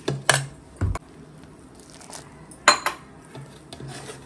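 Metal spoon clinking and scraping against a metal bowl as rice flour is stirred with hot water into dough: a few sharp clinks, the loudest about two and a half seconds in.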